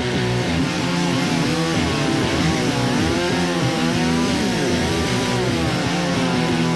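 Two-stroke chainsaw running, its engine pitch wavering up and down as the throttle changes.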